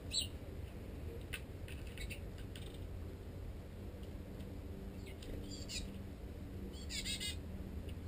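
Small songbirds calling: short high chirps, the sharpest one right at the start, and a fast run of notes about seven seconds in.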